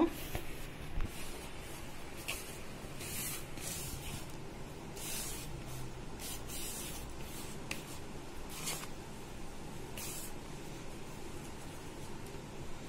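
Hand rubbing gram flour and ghee together in a plastic bowl: soft, dry swishes and rustles of flour as the fingers push through it, coming irregularly about once a second.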